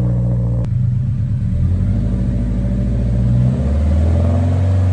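Toyota 86/Subaru BRZ 2.0-litre flat-four engine idling through an HKS Hi-Power single-exit stainless cat-back exhaust, a low steady exhaust note that shifts slightly about half a second in and wavers a little in pitch.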